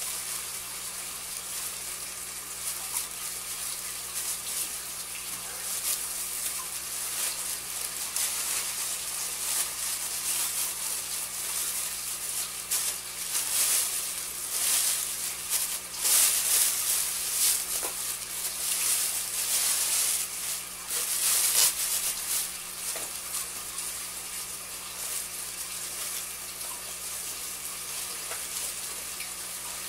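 A thin plastic bag rustling and crinkling as it is handled and pulled out of a cardboard shipping box. It comes in irregular crackles that grow louder and busier about halfway through, over a steady low hum.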